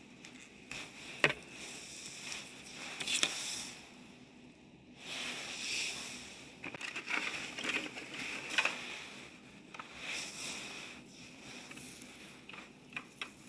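Hands working on a disassembled SodaStream's plastic body while thread tape is wrapped onto the pressure relief valve threads: irregular rustling with scattered sharp clicks and taps, the sharpest about a second in.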